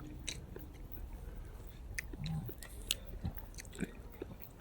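Chewing and eating sounds: a scatter of short wet mouth clicks and smacks as food is chewed.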